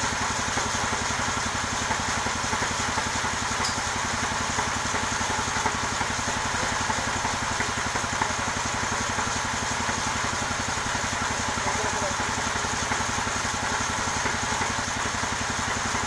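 Sawmill's engine running steadily at idle, an even rapid pulsing that does not change.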